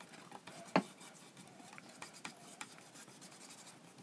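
Bristle paintbrush spreading PVA glue across a plywood board: faint scratchy brushing strokes, with a few light clicks, the sharpest about a second in.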